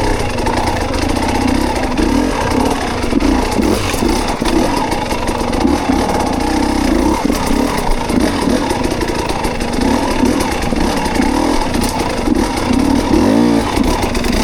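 Dirt bike engine running at low speed, its pitch rising and falling with repeated throttle blips as the bike is worked along a rough trail.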